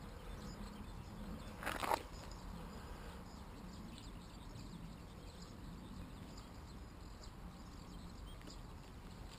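Faint outdoor ambience with a low steady hum. A single brief noise stands out just under two seconds in.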